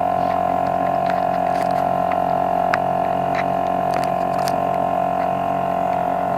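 Motorized river boat's engine running steadily at a constant pitch, with a few faint ticks.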